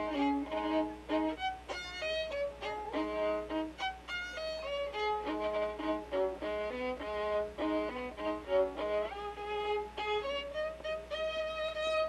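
Background music: a violin playing a quick melody of short notes, with a few notes sliding up near the end.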